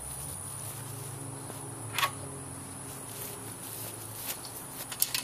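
Outdoor ambience with a steady high insect drone and a low hum, broken by one sharp click about two seconds in and a few small clicks near the end from handling the canopy's frame parts.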